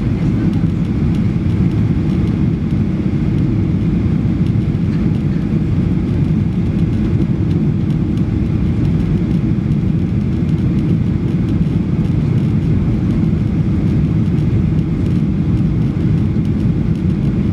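Cabin noise of a Boeing 737-800 on approach: the steady low rumble of its CFM56 engines and airflow, heard from inside the cabin at a window seat.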